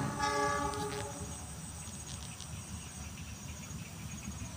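Faint insects chirping in short high-pitched pulses that repeat every second or so, over a low steady rumble. A brief pitched sound stands out in the first second.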